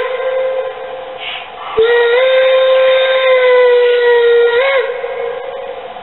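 Steam-whistle sound from the ESU sound decoder in a model Rio Grande C-16 2-8-0 steam locomotive, over a steady steam hiss. A short toot ends just after the start. About two seconds in comes a long blast of about three seconds: its pitch lifts at the start, sags slowly, and jumps up briefly just before it cuts off.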